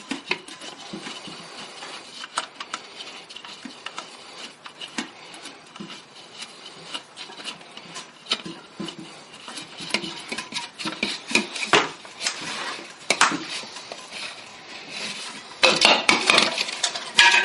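Light clicks, clinks and knocks of toilet-tank hardware being handled against the porcelain: the float ball being worked off and bolts and washers being fitted inside the tank. A louder cluster of clattering knocks comes near the end.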